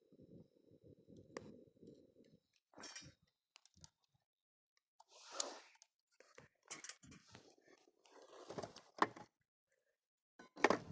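Irregular crunches, rustles and light clinks from a wood campfire being tended and gear being handled. A low rumble stops abruptly about two seconds in.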